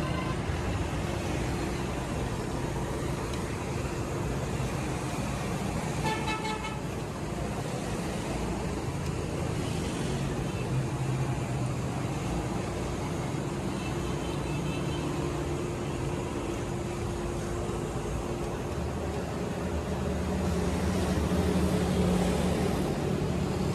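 Street traffic: vehicle engines running steadily with road noise, and a horn honking about six seconds in and again, more faintly, around fourteen seconds.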